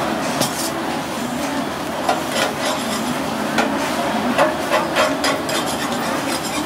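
Steady hiss of a handheld butane blowtorch melting cheese on top of a crepe on a griddle. Irregular sharp clicks and knocks run through it, the loudest of them a little over two seconds in and around four seconds in.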